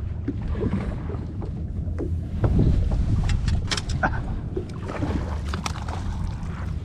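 Steady low rumble of a fishing boat on open water, with scattered light clicks and knocks.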